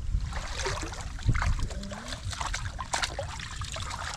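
Shallow water splashing and sloshing in irregular small bursts, the sound of hands or feet moving through a muddy pool.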